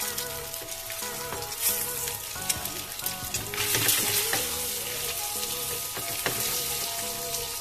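Whole hard-boiled eggs, scored with small cuts, sizzling in hot oil in a frying pan, with scattered crackles and a few light knocks as a wooden spatula turns them.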